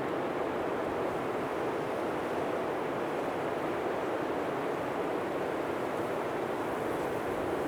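Steady blizzard wind blowing, a constant rushing noise with no gusts or breaks.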